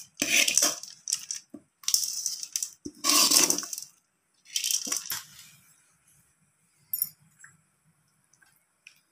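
A metal spoon scraping a sautéed onion-and-carrot tempering out of a metal kadai, a handful of rough metal-on-metal scrapes and rattles in the first five seconds, then faint stirring of the mix into wheat dosa batter with one sharp click about seven seconds in.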